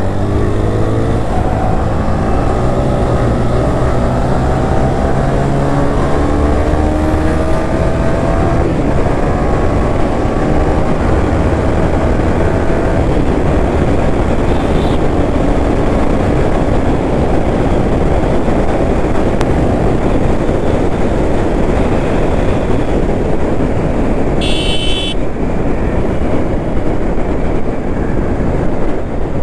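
Yamaha sport motorcycle's engine accelerating, its pitch climbing over the first several seconds, then running steadily at speed under heavy wind rush on the helmet-mounted microphone. A brief high-pitched beep about 25 seconds in.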